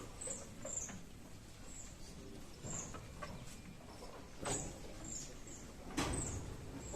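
Small birds chirping in short, high, repeated notes, with a couple of sharp knocks about four and a half and six seconds in.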